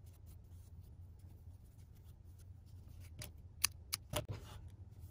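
Hands working yarn while tying knots on a small crocheted piece: faint handling sounds over a low steady hum, with a few sharp clicks between about three and four and a half seconds in.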